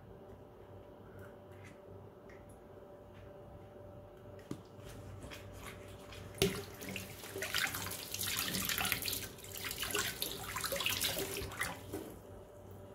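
Water running from a tap for about five seconds, starting with a sharp click a little over six seconds in. A few faint light clicks come before it.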